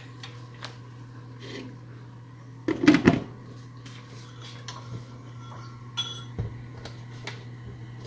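A glass lid set down onto a skillet about three seconds in: a short clatter of the lid against the pan rim, followed by a few small clicks over a steady low hum.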